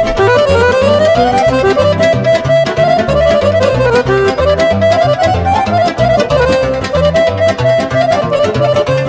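Romanian lăutărească party music in an instrumental break between sung verses: accordion playing a winding melody over a steady pulsing bass beat.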